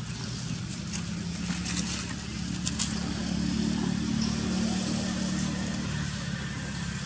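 A motor vehicle's engine running with a steady low hum, swelling through the middle and easing off near the end, with a few light crackles of dry leaves.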